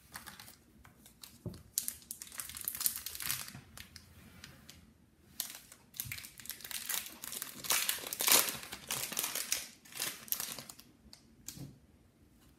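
A foil trading card pack being torn open and its wrapper crinkled by hand, in irregular rustling bursts that stop near the end.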